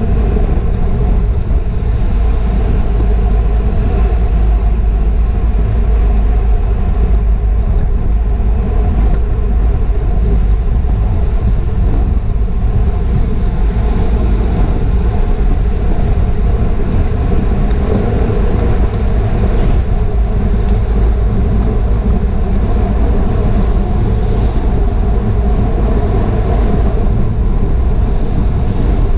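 Steady wind rush buffeting a GoPro's microphone on a bicycle ridden at race speed in a criterium.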